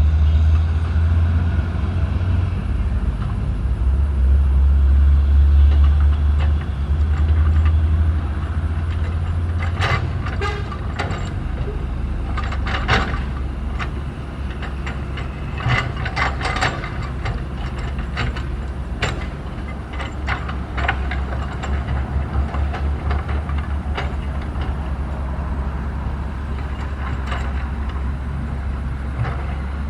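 SANY SY135F excavator's diesel engine running under working load, heaviest for the first several seconds, then steadier. From about a third of the way in come repeated sharp clanks and knocks as the bucket works the earth and dumps it into the truck.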